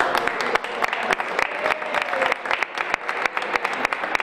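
Audience applauding: many hands clapping unevenly, with voices underneath.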